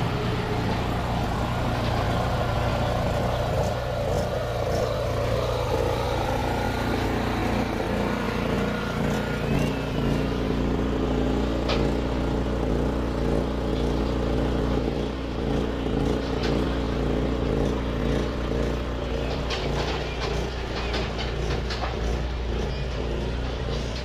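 Street ambience dominated by a motor vehicle engine running close by, a steady low hum that settles into an even pitched drone about a third of the way in. A few short clicks near the end.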